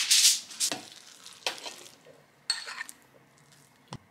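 Kitchen handling sounds while making meatloaf: a loud rushing hiss that stops shortly after the start, then a few light knocks and rustles of utensils and the meat mixture being handled.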